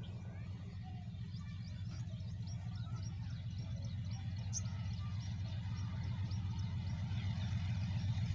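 Low, steady engine rumble of a Hitachi diesel-electric locomotive drawing nearer, growing gradually louder. Small birds chirp rapidly throughout.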